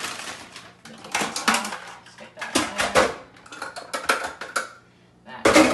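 Plastic kitchen food chopper being taken apart, its lid and bowl clicking and clattering in irregular bursts, with a Ziploc bag rustling. The loudest knock comes near the end, after a short lull.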